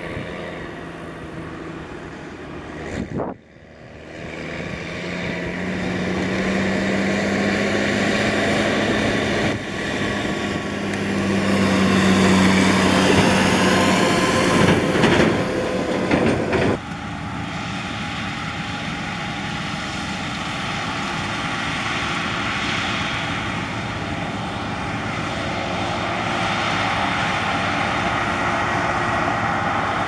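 Case IH tractor's diesel engine running as it drives along a gravel road hauling a grain trailer, its steady hum growing louder to a peak about twelve to fifteen seconds in. The sound changes abruptly about three seconds in and again after about seventeen seconds, then settles into a steadier engine and road noise.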